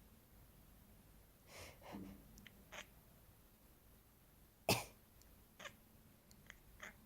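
A person coughing in separate short coughs: a longer throaty one about a second and a half in, one loud sharp cough near the middle, and a few fainter short sounds after it.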